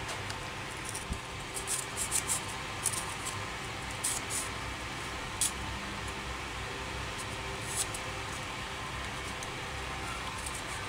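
Wooden popsicle sticks of a handmade rubber band pistol clicking and tapping as they are handled and fitted together. There are several light clicks in the first half and one more later, over a steady background hiss.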